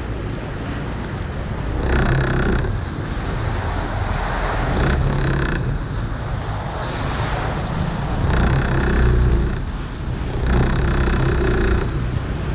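Motor vehicles driving through flood water on a street, their engines swelling about four times as they pass over a continuous rush of water noise.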